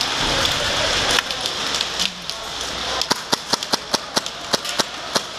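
KWA MAC11 gas-blowback airsoft SMG fired in rapid semi-auto, a quick string of sharp cracks about four a second. The string starts about three seconds in, after a stretch of steady hiss.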